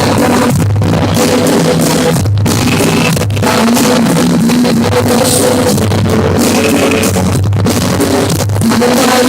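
Rock band music with guitar and drum kit playing steadily, with little or no singing.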